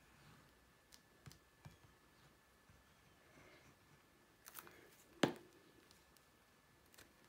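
Quiet tabletop handling while liquid glue is squeezed onto card, with a few faint light clicks, then one sharp knock about five seconds in as the plastic glue bottle is set down on the craft mat.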